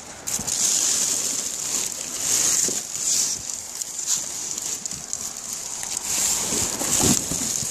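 Plastic garbage bags rustling and crinkling, handled in irregular bursts as someone rummages through them.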